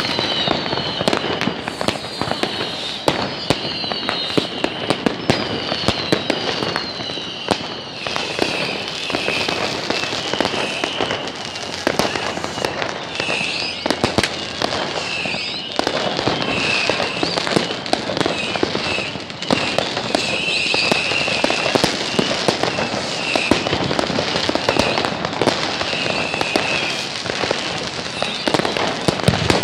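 Fireworks going off nonstop: a dense run of sharp bangs and crackling, overlaid with high whistles, several sliding down in pitch, mostly in the first half.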